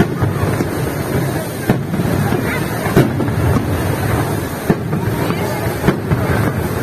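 Fireworks banging, about six sharp cracks at irregular intervals of roughly a second, over a steady rumble of crowd chatter and wind on the microphone.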